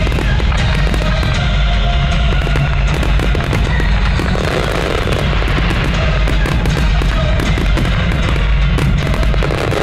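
Dense, continuous barrage of firework bursts and crackle, many reports overlapping with a heavy low rumble, with music playing underneath.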